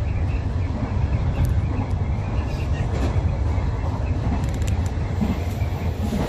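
Hanshin 8000 series electric train running at speed, heard from the front of the train: a steady low rumble of wheels on rails and running gear. A few faint high clicks come through, the clearest about four and a half seconds in.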